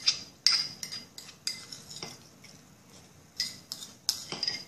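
Metal eating utensil clinking and scraping against a dish while eating, a quick run of ringing clinks, a pause of just over a second in the middle, then more clinks near the end.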